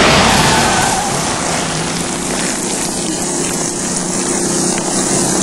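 Heavy rain pouring steadily, with a low steady hum underneath.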